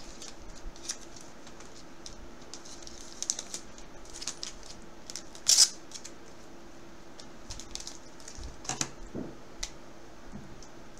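Scattered light clicks and plastic rustles from trading cards and their hard plastic holders and sleeves being handled and set down on a wooden desk, with one louder rustle about five and a half seconds in.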